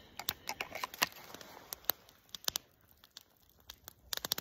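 Freshly lit SOL fire-starting fuel cube burning and bubbling, giving irregular sharp crackles and pops, with a quick cluster of clicks near the end as the small stove beside it is handled.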